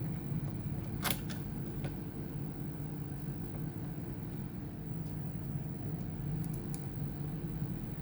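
Steady low hum with a few short, light clicks and ticks of small tools and parts being handled: a cluster about a second in, single ones near the middle, and a quick triple near the end.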